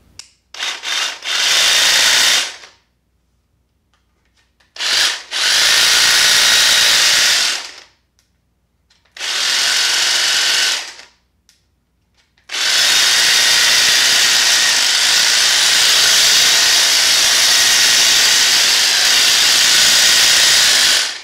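Milwaukee M18 Fuel Quick Lok battery power head driving the articulating hedge trimmer attachment, its blades running free with no cutting load. It is triggered in four runs that start and stop abruptly: a couple of brief blips and about a second's run, then runs of about two and a half and two seconds, and a long final run of about eight seconds.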